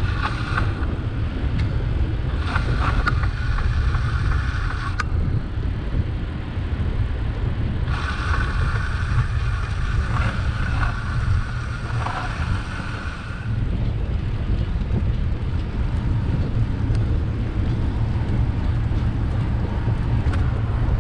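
Wind buffeting the microphone of a moving bicycle, a steady low rumble. Twice, for a few seconds, a higher-pitched noise of passing street traffic rises over it.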